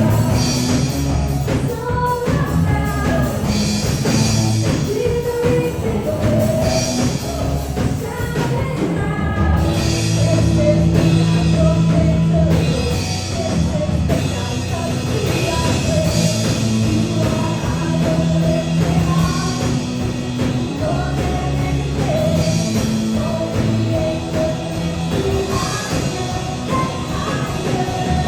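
A rock-style song with a singer's voice over a band with drums and sustained bass and keyboard notes.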